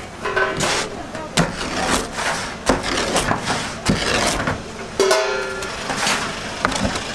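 Rolling pizza cutter crunching through a charred, crisp pizza crust and knocking against the wooden peel, a run of sharp irregular cracks and clacks.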